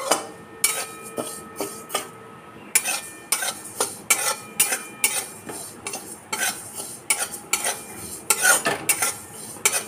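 Metal spatula scraping and stirring broken wheat (dalia) as it is dry-roasted in an empty metal kadai without oil. The grains rustle against the pan in quick repeated strokes, with a short pause a couple of seconds in and a faint metallic ring from the pan after some strokes near the start.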